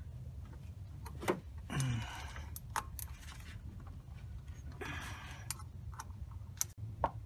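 Metal clicks and clinking rattles from a hand tool working the bolts of a water pump pulley as they are tightened, over a steady low hum.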